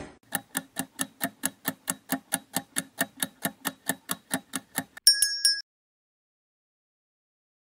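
Countdown timer sound effect: fast clock ticks, about four or five a second for nearly five seconds, then a bright two-strike bell chime signalling that time is up.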